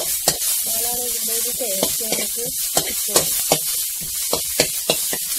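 Chopped onions and garlic frying in coconut oil in a pan: a steady sizzle, with repeated sharp clicks and scrapes as a steel spoon stirs them against the pan.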